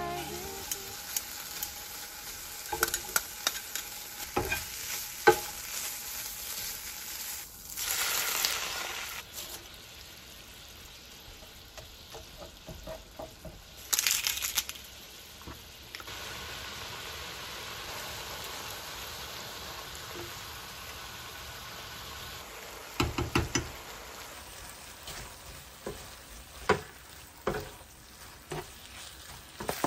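Cooking in a nonstick frying pan: ham slices sizzle under a steady hiss, with metal tongs clicking against the pan. Later the spaghetti simmers in water in the same pan, and near the end a spatula knocks against the pan as the pasta is tossed.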